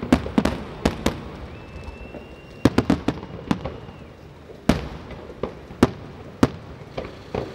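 Aerial firework shells bursting in a display: a series of sharp bangs at irregular intervals, some in quick clusters, with a gap of over a second in the first half. A faint steady high whistle runs for a couple of seconds under the early bangs.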